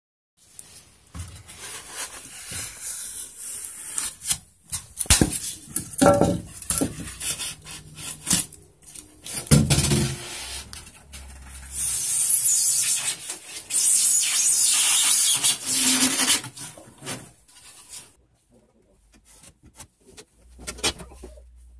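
Irregular rubbing, scraping and knocking as XPS foam blocks and wooden battens are handled and worked, with two longer stretches of scraping about halfway through.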